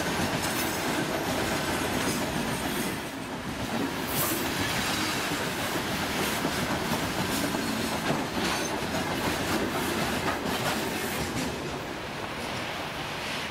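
Freight train of open gondola wagons rolling past close by: a steady rumble of wheels on rails with a run of clickety-clack from the wheels over the rail joints, easing slightly near the end.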